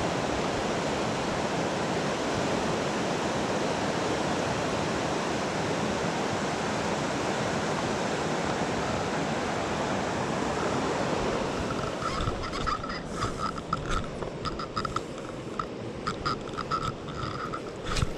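Fast river water rushing steadily. After about twelve seconds the rush drops lower and a run of short clicks and brief high pips comes in, with one sharp click near the end.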